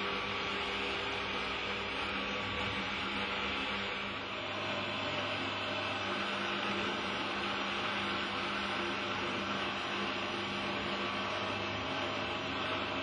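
Steady low electrical hum with a hiss over it, unchanging throughout.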